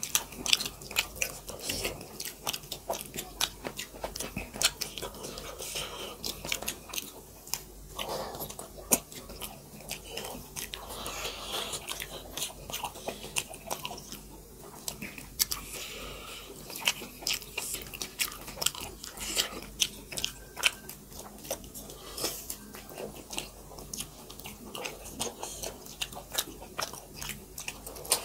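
Close-miked mukbang eating: two people chewing maize dhido and chicken curry eaten by hand, with wet chewing and many sharp mouth clicks and smacks throughout.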